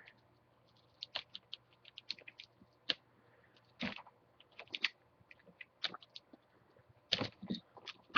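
Adhesive tape being peeled off the back of a laptop LCD screen: irregular crackling clicks and ticks, with a louder cluster near the end.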